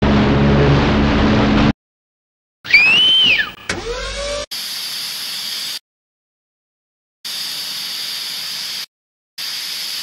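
Steady hiss of water spraying from a fire boat's water cannon, in three stretches with short silent gaps, starting about halfway in. Before it come a short engine-like rumble and a loud brief whine that rises and falls.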